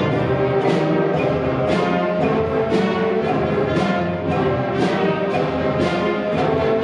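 School concert band playing, brass carrying sustained chords over percussion strikes that fall about once a second on the beat.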